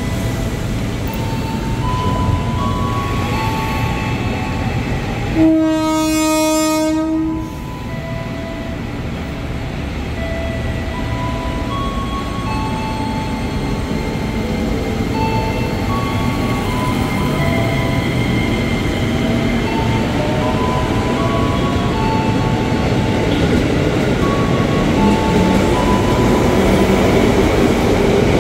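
Electric commuter train sounds a single horn blast of about two seconds, a few seconds in, then pulls out of the station. Its traction motors give off a whine in a series of stepped tones, and the rumble of its wheels grows louder as it gathers speed.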